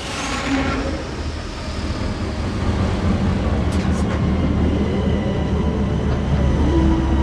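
Naboo N-1 starfighter landing sound effect: a steady low engine rumble that fades in and swells over the first few seconds, with a high whine falling away in the first second. A couple of sharp clicks come about four seconds in, and a steady tone rises out of the rumble near the end.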